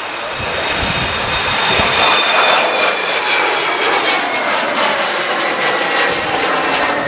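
Embraer E175 regional jet's twin turbofans at takeoff thrust as it lifts off and climbs past. The jet noise grows louder over the first two seconds and then holds, with high whining tones that slowly fall in pitch.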